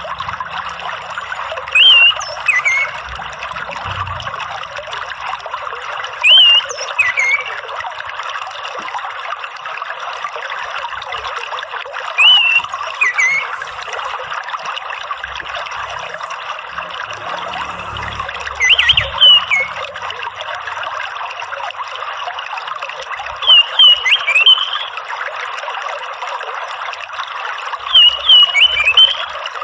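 Orange-headed thrush giving short phrases of quick gliding notes, six in all, one every four to six seconds, over a steady trickle of running water.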